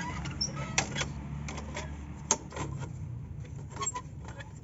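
Scattered light clicks and taps at irregular intervals over a steady low hum.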